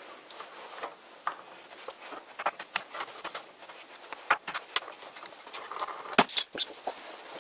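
Steel jaws of a worn 7.5-inch three-jaw lathe chuck being fitted into their slots, with the chuck key turning the scroll to draw them in: a run of irregular light metal clicks and clinks, the loudest few a little after six seconds in.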